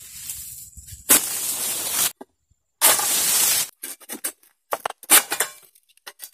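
Oil palm fronds scraping and rustling as a long-pole harvesting sickle (egrek) is pulled through them: two loud strokes of about a second each, followed by several short cracks and snaps.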